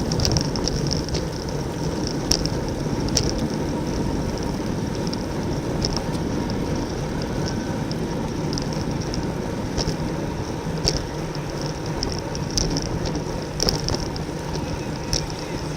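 Wind rushing over a bicycle-mounted camera's microphone while riding at race speed in a bunch, with scattered sharp high clicks and ticks from the bike.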